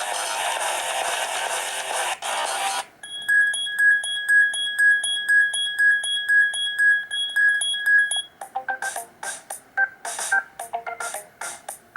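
Stock ringtones of a Black Fox B5 smartphone playing one after another. A dense chiming tune ends about three seconds in. Then comes an even, high electronic beeping at about three beeps a second for some five seconds, and then a tune of quick short notes.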